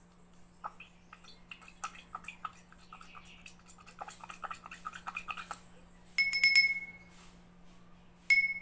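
Small footed glass cup being handled and struck: a run of light clicks and scrapes, then two sharp clinks that ring on with a clear pitch, about two seconds apart, the second near the end.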